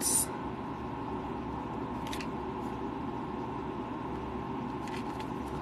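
Steady low background hum of a small room, with a brief hiss at the very start and a few faint clicks as a plastic supplement bottle is handled.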